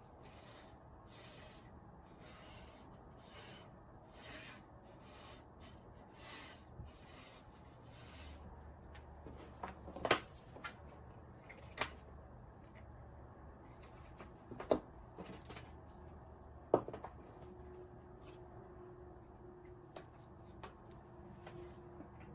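Hands handling a plastic power adapter, its cable and an LED tower's base on a desk: soft rubbing for the first several seconds, then a few light clicks and knocks as the adapter and cable are moved and set down.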